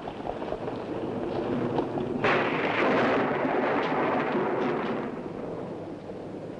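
Thunder: a sudden crack about two seconds in that rumbles on and fades over the next few seconds, over a steady storm noise.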